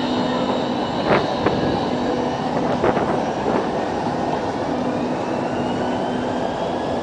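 Electric tram running on street track: a steady rumble with a motor whine rising in pitch as it picks up speed. A few sharp knocks sound about one and three seconds in.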